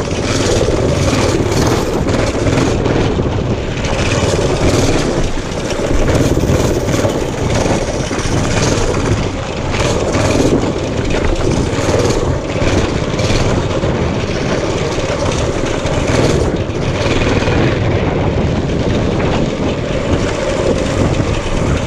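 Mini bike's new 208cc 6.5 hp single-cylinder engine running, its level surging and dipping every second or two.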